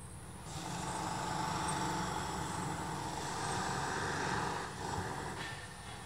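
Steady motor-vehicle noise, an engine and tyre rumble, swelling about half a second in and easing slightly near the end.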